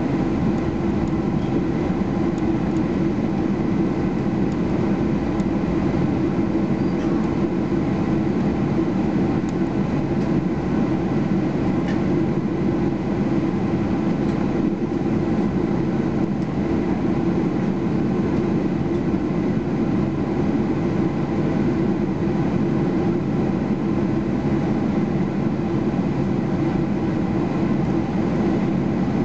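Cabin noise inside a Boeing 737-800 taxiing on the ground: the CFM56-7B turbofan engines at idle make a steady low drone, heard through the fuselage.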